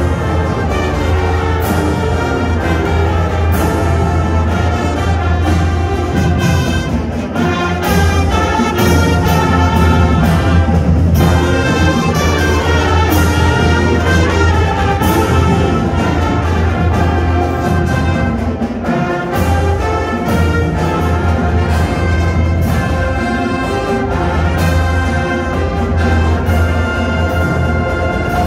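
Marching band playing full out: trumpets, saxophones and sousaphones over a drum line, loud and continuous.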